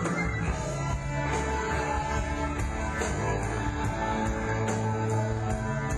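Rock band playing live, mostly instrumental: sustained guitar notes over bass, with regular drum and cymbal hits.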